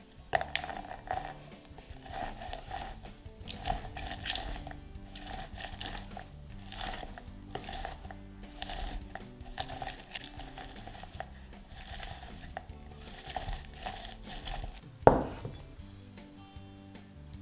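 A lemon half twisted back and forth on a plastic citrus reamer, making repeated rubbing, squeaking strokes roughly once a second as the juice is pressed out. A single sharp knock near the end.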